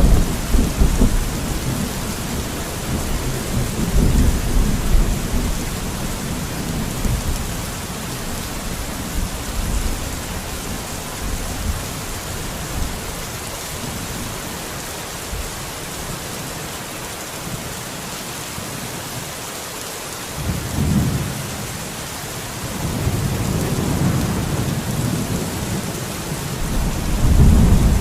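Steady rain hiss, with deep low rumbles swelling up and dying away several times: at the start, about four seconds in, around twenty-one seconds, and loudest near the end.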